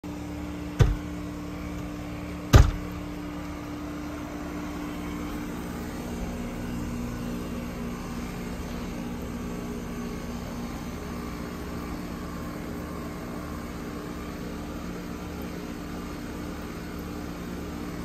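Outdoor unit of an air-conditioning heat pump in defrost mode, humming steadily with a few low, even tones. Two loud, sharp knocks sound in the first three seconds.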